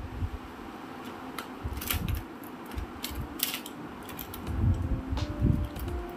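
A hand rummaging through a clear plastic pencil box of pens, markers and scissors: light plastic clicks and clatter with soft knocks. Soft background music comes in near the end.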